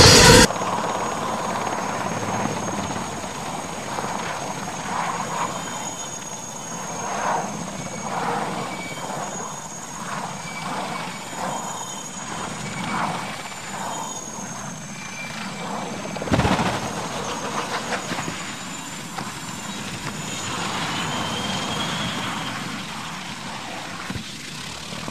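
Helicopter running, with a steady faint high whine over the rotor and engine noise, and one sharp thump about sixteen seconds in.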